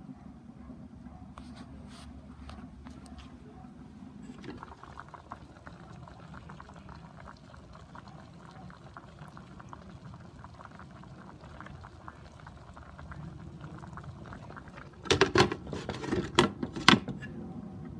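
Chicken drumsticks simmering in liquid in an electric skillet, bubbling and crackling steadily; the bubbling is clearer from about four and a half seconds in, once the glass lid is off. Near the end the glass lid clatters onto the pan with several loud knocks.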